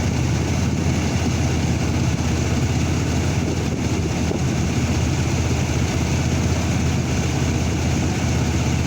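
Chevrolet S10 pickup's six-cylinder engine idling steadily, with a P0300 random misfire logged that is being traced to cylinder 1.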